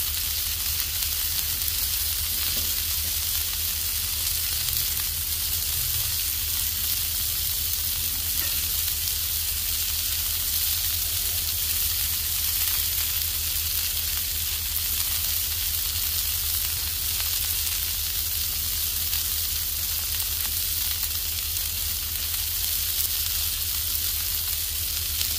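Onion smash burger patties, topped with melted cheese, sizzling steadily on a hot flat-top griddle, over a steady low hum.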